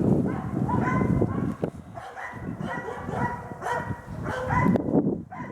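Hunting dogs baying at a wild boar: a rapid run of barks, one close after another.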